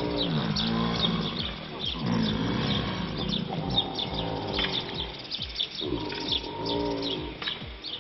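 Several American alligators bellowing in chorus: repeated low calls, each about a second long, rising and falling in pitch. These are the calls alligators make to each other in the mating season. Birds chirp throughout.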